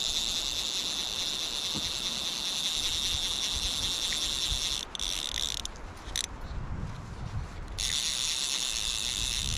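Fly reel's click-and-pawl drag ratcheting in a fast, even buzz of clicks while a hooked brook trout is played. The buzz breaks off about five seconds in, comes back in short spurts, and runs again for the last two seconds.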